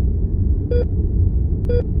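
Heart monitor beeping steadily about once a second, a short beep each time, twice here, over a steady low rumble of room tone.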